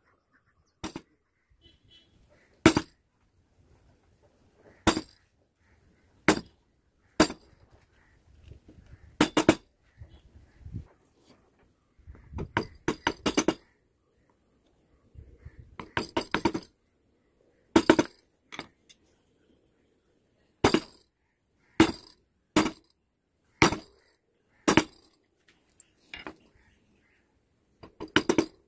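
A wood-carving chisel being struck to cut wood. The blows come singly, often about a second apart, with quick runs of several lighter taps in between.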